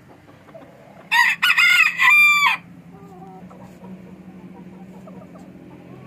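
A rooster crows once, loudly, starting about a second in and lasting about a second and a half; the crow comes in a few quick parts and ends on a long held note.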